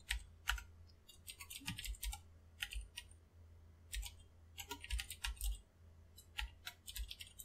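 Typing on a computer keyboard: quick, irregular runs of key clicks broken by short pauses.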